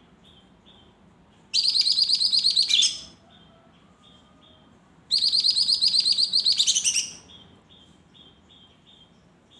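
Caged lesser green leafbird (cucak ijo mini) singing: two loud bursts of rapid, trilled high notes, each lasting about one and a half to two seconds, about a second and a half in and again about five seconds in. Faint short chirps repeat steadily between the bursts.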